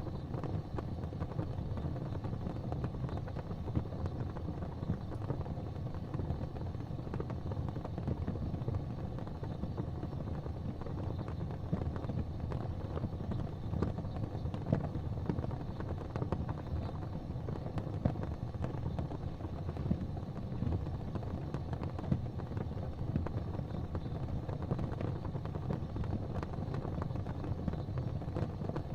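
Fire burning with a steady low rumble under dense, irregular crackling and occasional sharper pops.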